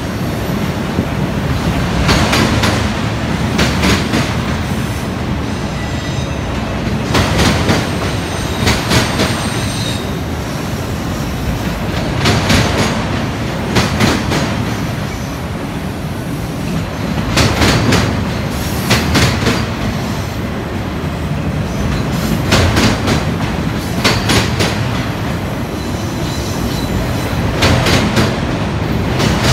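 Autorack freight cars rolling past with a steady rumble of steel wheels on rail. Clusters of clicks come as each car's wheel trucks cross a rail joint, in pairs about a second and a half apart and repeating about every five seconds. A faint high wheel squeal comes a few seconds in.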